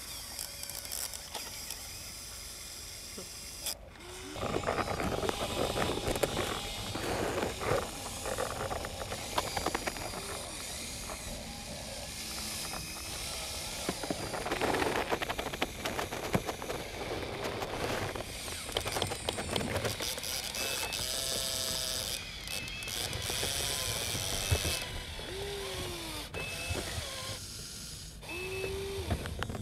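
Huina RC excavators' small electric motors whining in short rising and falling bursts, with gears clicking and wet mud scraping as the buckets dig and load a toy dump truck. A few short high beeps come in the later part.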